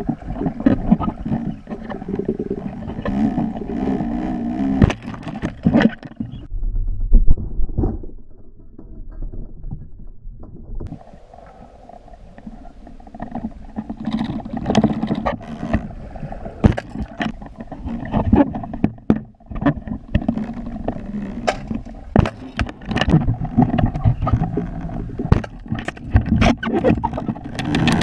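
Muffled underwater sound through a GoPro Hero3+ waterproof housing: river current rushing and gurgling, with frequent sharp clicks and knocks. The rush drops away for a few seconds about a third of the way in, then returns.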